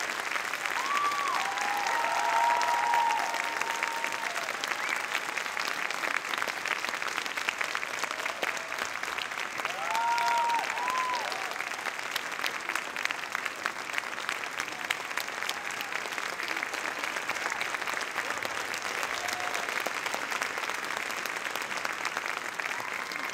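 Theatre audience applauding steadily after a ballet pas de deux, with a few voices calling out cheers about a second in and again about ten seconds in.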